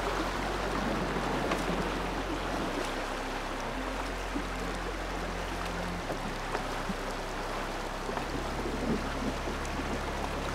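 Shallow, rocky river rushing and splashing steadily over boulders. Under it runs a low, sustained music drone that shifts note every couple of seconds.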